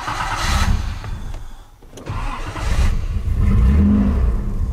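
1986 Nissan 300ZX's 3.0-litre V6 being cranked with its mass airflow sensor missing: the starter turns it over, stops briefly, then cranks again until the engine catches and runs from about three seconds in, with a short rise in revs near four seconds.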